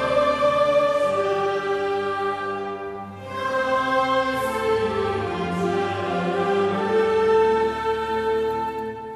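Mixed choir and youth orchestra of violins, cellos, double bass and flutes performing a slow piece together, with sustained sung and bowed notes. The phrase breaks briefly about three seconds in and again near the end.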